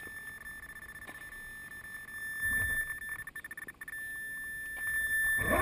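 RC crawler's electric motor and speed controller: a steady high electronic whine, a few clicks and a low rumble midway, then near the end the motor spins up with a loud rising whine.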